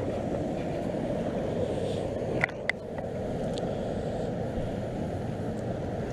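Steady low rush of water from the dam, with two sharp clicks about two and a half seconds in.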